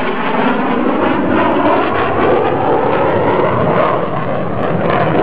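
Lockheed Martin F-22 Raptor's twin Pratt & Whitney F119 turbofans in a loud jet roar as the fighter makes a low pass just below the speed of sound. The roar sweeps up and down in pitch as it goes by.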